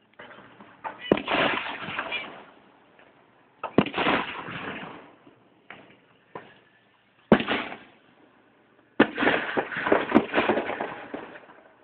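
Aerial fireworks going off: a string of sharp bangs a few seconds apart, each trailing off in a fading crackle. The loudest come about seven and nine seconds in.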